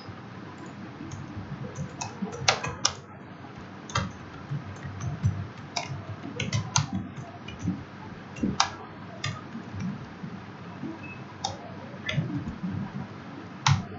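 Typing on a computer keyboard: irregular keystroke clicks with short pauses between runs.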